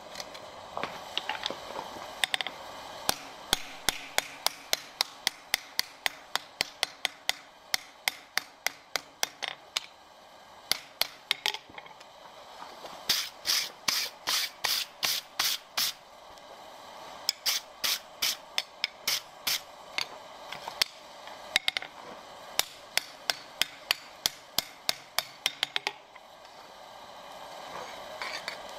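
Hand hammer striking red-hot steel on an anvil in steady runs of about three blows a second, forging the flat blade of an ice spud. About halfway through there is a short run of scraping strokes as a hand brush is scrubbed across the hot steel.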